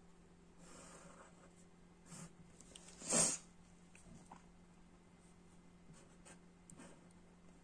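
Green felt-tip marker drawn lightly across paper in short, faint strokes, with a brief louder noise about three seconds in.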